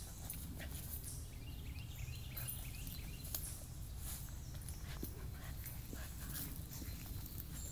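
Shiba Inu rolling and rubbing on a dirt trail: scattered rustles and scrapes of its body against dirt and dry leaves, over a steady low rumble.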